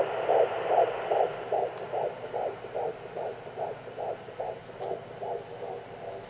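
Fetal heartbeat at 14 weeks as picked up by a Doppler: a fast, even train of whooshing pulses, a little over two a second, over steady hiss. The beats fade somewhat in the second half.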